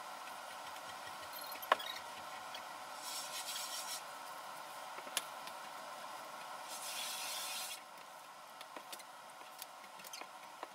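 Nylon and hog-hair brush on a water-fed pole scrubbing the outside of the window glass, heard from inside as two short spells of hissing scrubbing, about three seconds in and again around seven seconds, with a few light taps, over a steady faint hum.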